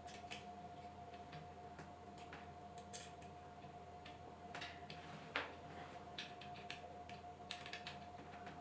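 Faint scattered clicks and light taps of small metal parts and tools being handled while tightening a mini metal lathe's parts, with one sharper click about five seconds in. A steady faint tone runs underneath.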